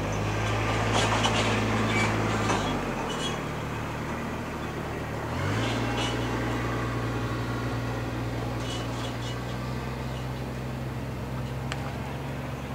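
An engine runs steadily with a low hum. About three seconds in its pitch slides down and it drops out, and a few seconds later it slides back up and runs steady again.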